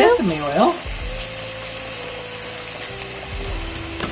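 Egg roll filling sizzling steadily as it browns in a frying pan.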